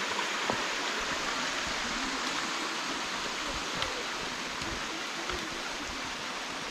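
Steady rushing of a nearby mountain stream, with a few faint knocks over it.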